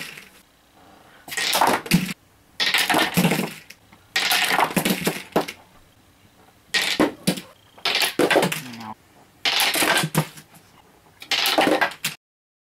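Mini candlepin bowling: a small ball rolling down a plywood lane and little pins clattering as they are knocked down, in about seven short rattling bursts of roughly a second each. The sound cuts off suddenly near the end.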